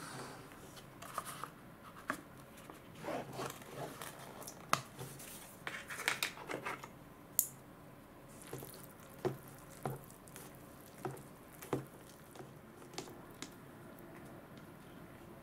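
Cup ramen being handled: the paper lid is peeled off with crinkling and tearing, then plastic chopsticks click against the cup and squish through the noodles as they are stirred. The sound is a run of irregular light clicks and scrapes, busiest a few seconds in and thinning out near the end.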